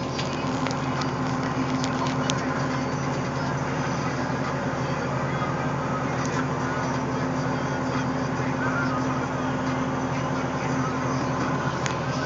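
Caterpillar 525B skidder's diesel engine running at a steady speed, heard from inside the cab, with a few light clicks.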